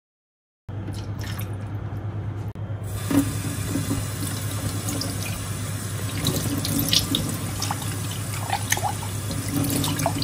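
Water running in a steady stream, starting just under a second in and growing fuller about two seconds later, over a steady low hum, with a few small clicks.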